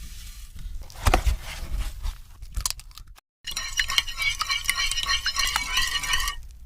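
Kitchen handling sounds: scattered clicks, crinkling and crunching, with a clink or two. A little over three seconds in, the sound cuts out abruptly for a moment, then a voice-like sound follows.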